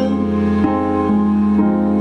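Karaoke backing track of a slow piano ballad: sustained keyboard chords with no voice, changing chord about a third of the way in.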